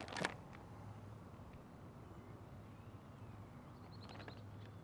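Handling noise on a small RC sailboat: one sharp knock about a quarter second in and a short run of clicks near the end, picked up through the deck by the phone zip-tied on top, over a faint steady low hum.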